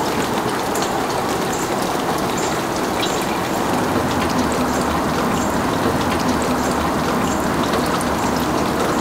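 Steady, rain-like patter and hiss of wet snow falling, with scattered small ticks of drops landing.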